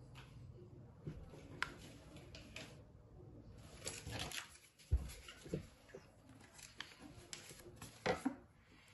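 Hands handling small plastic Lego minifigure parts on a tabletop: scattered light clicks and rustles, a sharper knock about five seconds in, and a quick run of clicks near the end as a piece is picked up.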